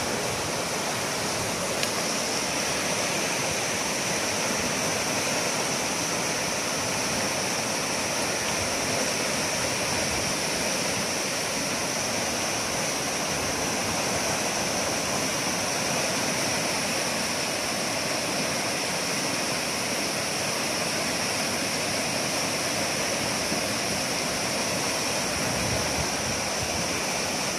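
Steady rushing of a flooded river, muddy water in spate running fast and turbulent past the banks.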